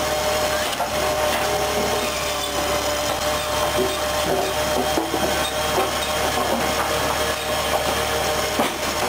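Firewood saw-splitter machine running with a steady hum while its blade cuts through logs fed by hand. A sharp knock sounds near the end.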